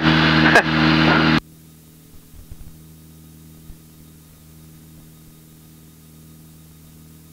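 Piper Archer's engine and cabin noise heard through the cockpit audio feed: loud for about the first second and a half, then cutting off abruptly to a faint, steady low engine hum.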